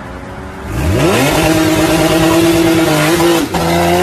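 A car engine revving hard: it climbs sharply in pitch about a second in, then holds at high revs. Near the end it cuts out for a split second and picks up again.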